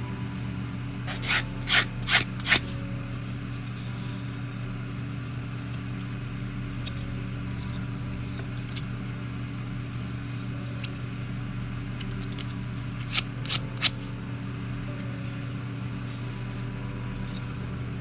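Sanding stick rubbed over a plastic model-kit part in short, quick strokes: four strokes about a second in and three more near the end, over a steady low hum.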